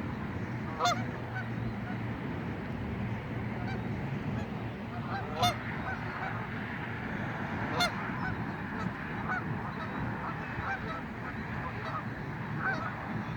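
Geese honking: a few loud, sharp honks about a second in, around five seconds and near eight seconds, with fainter calls scattered between, over steady low background noise.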